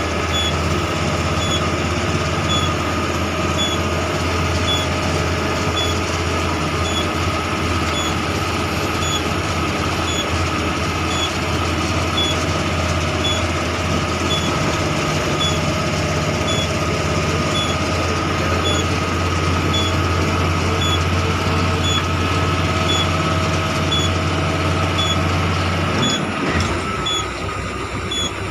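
A vehicle engine running steadily with a low hum, and a faint high tick repeating about once a second. The low hum drops away a couple of seconds before the end.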